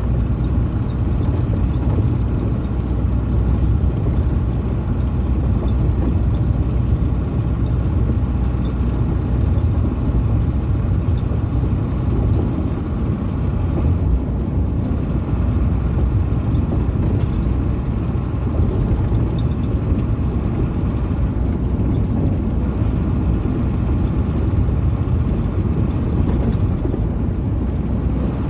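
Ford Cargo 712 light truck's diesel engine and tyre and road noise at a steady highway cruise, heard from inside the cab: an even, low drone that neither rises nor falls.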